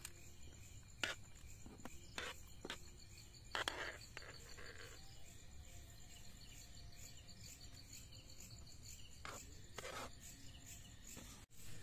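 Insects chirping steadily in a high, even rhythm. Several soft knocks and scrapes in the first four seconds and again near the end, as chopped vegetables are tipped from a wooden board into a steel pan.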